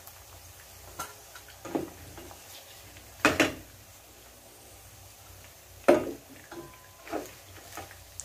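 Black plastic spatula scraping and knocking against a frying pan as pieces of rendered pork belly are pushed aside in the fat, in a handful of separate strokes. The loudest come about three seconds in and again about six seconds in.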